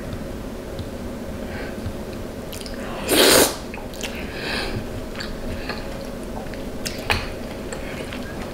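Close-up mouth sounds of a person eating seafood: chewing with small wet clicks and smacks, and one short, loud hiss-like burst about three seconds in.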